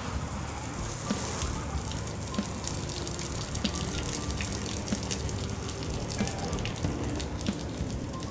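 Water from a garden hose spraying onto a car's body, a steady hiss of spray with many small patters of water striking the sheet metal.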